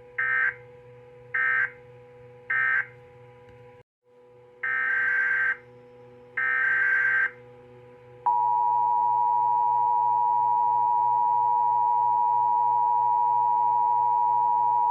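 Emergency Alert System data and tones: three short data bursts that close one alert, a brief dropout, then two longer data bursts that open the next alert. About eight seconds in, the loud, steady two-tone EAS attention signal starts and holds. A faint steady hum runs underneath.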